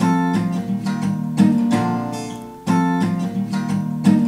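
Background music: strummed acoustic guitar chords, with a loud chord struck about every second and a half and ringing out between strikes.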